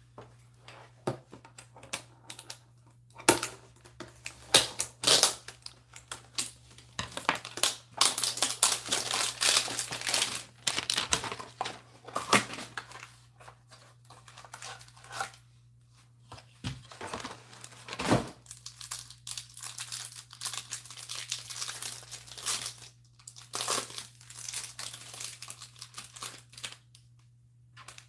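Cardboard hanger box of football trading cards being opened: the flap pulled open and the wrapper around the card stack crinkled and torn off, in irregular bursts of crackling with a few sharp clicks.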